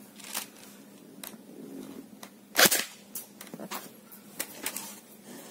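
Tokyo Marui G36C electric airsoft gun firing a single semi-auto shot through a chronograph for a speed test: one sharp snap about two and a half seconds in, among fainter clicks.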